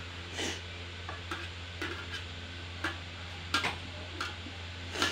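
Stainless steel plate clinking against a steel mixer-grinder jar as chopped tomato is pushed off it: several irregular light clicks and taps. A steady low hum runs underneath.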